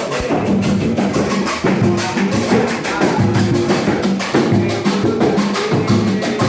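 Music with busy percussion: a fast, steady run of shaker-like strokes and drum hits over a repeating bass line.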